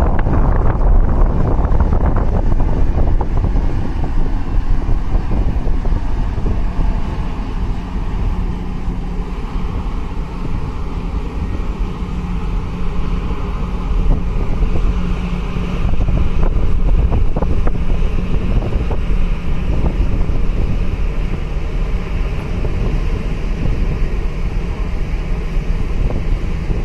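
Wind buffeting the microphone, with a low steady drone of ship and boat engines underneath.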